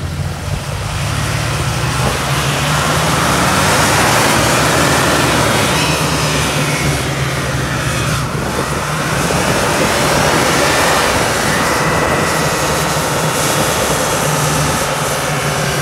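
Ford F-150 pickup's engine held near wide-open throttle in a burnout, its rear wheel spinning on wet plywood and mud. The revs sag about halfway through and climb again.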